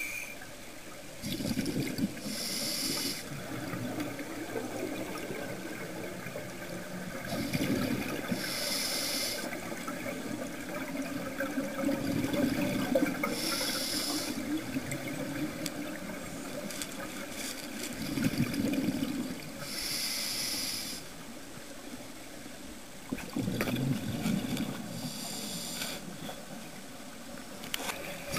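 Scuba diver breathing through a regulator, heard underwater: a low bubbling rush of each exhale followed by a short, sharp hiss of each inhale, about five breaths spaced roughly six seconds apart.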